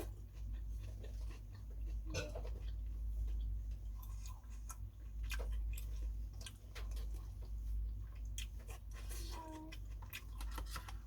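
Close-up eating sounds of someone chewing phở noodles, with many small wet clicks and smacks of the mouth scattered throughout, over a steady low hum.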